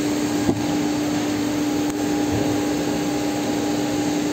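Steady machine hum with a constant low tone, and a light click about half a second in.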